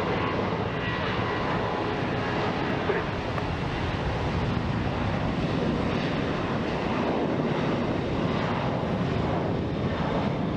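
Jet airliner engines running, a steady, even rush of engine noise.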